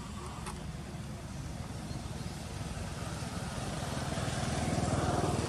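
A motor vehicle's engine running, growing louder toward a peak near the end as it passes by.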